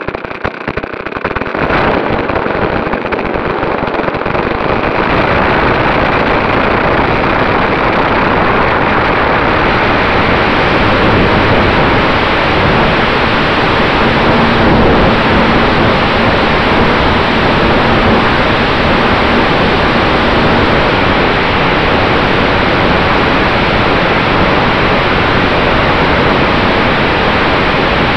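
Engine and propeller of a radio-controlled Top Flite P-51 Mustang model, heard from a camera riding on the plane. They run up to full power over the first few seconds of the takeoff roll, then give a loud, steady rush mixed with wind on the microphone as the model climbs.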